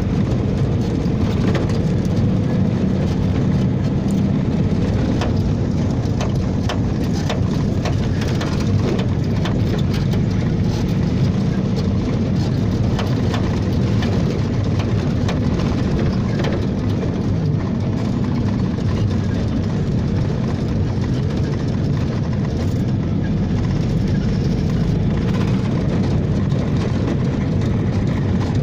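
Engine and road noise inside a moving bus: a steady rumble, with occasional short clicks and rattles.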